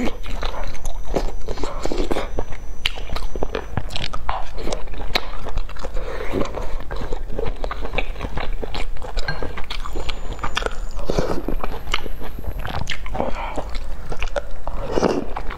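Close-miked eating: steady chewing and biting of noodles and enoki mushrooms, full of short wet mouth smacks and clicks.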